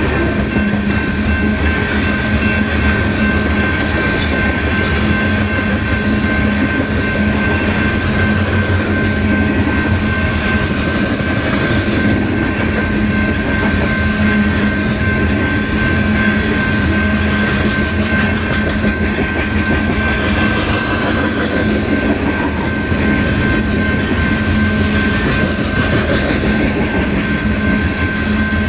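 Loaded coal train's gondola cars rolling steadily past, a continuous rumble of steel wheels on rail with rapid clickety-clack over the joints and a thin steady high tone running over it.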